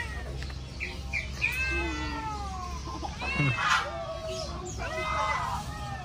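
Caged cats meowing repeatedly: several drawn-out meows that rise and fall, one every second or two, with short high squeaks near the start and a harsher, louder cry about halfway through.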